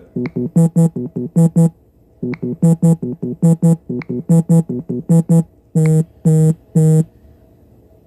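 Samsung Galaxy phone's vibration motor buzzing out the One UI 'Off-beat' vibration pattern: short pitched buzzes in a syncopated, electronic-music-like rhythm. Near the end come three longer, evenly spaced buzzes of the 'Zig-zig-zig' pattern.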